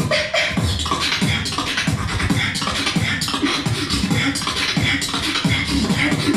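A beatboxer performing live: a fast rhythm of vocal percussion, with sharp mouth clicks and snares over low bass sounds that repeatedly drop in pitch, a few times a second.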